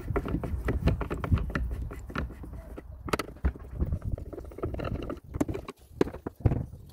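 A Phillips screwdriver working the screws and plastic housing of a pressure washer: irregular small clicks, scrapes and taps, with a sharper click about three seconds in.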